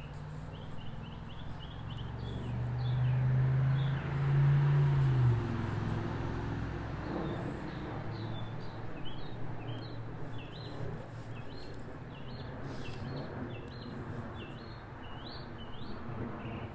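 Small birds chirping repeatedly, over a low hum that swells for a few seconds and cuts off about five seconds in.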